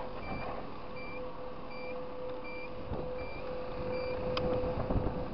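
Scooter turn-signal beeper sounding short, even beeps about 0.7 s apart, six in all, stopping a little before the end, over the running scooter engine with a steady tone beneath.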